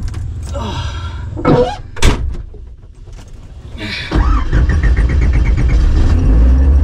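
Cabin sound of the turbocharged GM Vortec 3500 inline five-cylinder running: a low rumble, a single sharp clunk about two seconds in, a brief dip, then from about four seconds in the engine runs much louder with an even pulsing throb.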